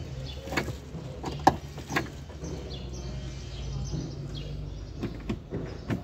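Sharp plastic-and-metal clicks, three in the first two seconds and loudest about one and a half seconds in, from the drain-valve and spin-clutch lever under a top-load washing machine being worked by hand to check why the machine will not drain or spin. A steady low hum runs underneath.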